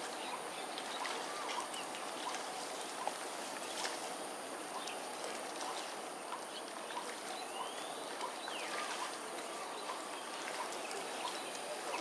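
Outdoor waterside ambience: a steady background hiss with a thin steady high whine, dotted with short, scattered chirps and calls, and one rising whistle a little past the middle.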